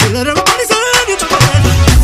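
Loud dance music with a heavy drum beat, strong bass and a gliding melody line.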